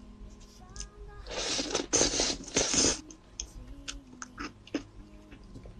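Close-miked eating of a lava cake: about a second in, three loud hissing slurps of the runny filling over a second and a half, followed by scattered soft wet mouth clicks.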